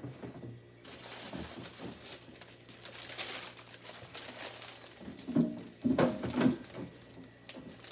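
Plastic bags and food packaging crinkling and rustling as groceries are handled, a dense crackle starting about a second in. There is a short, louder, lower sound around the middle of the last half.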